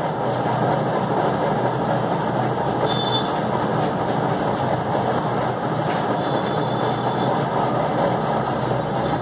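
Continuous rapid scratching of toothbrush bristles being rubbed to spatter paint onto paper for spray painting. It starts at the outset and runs at an even level with no pauses.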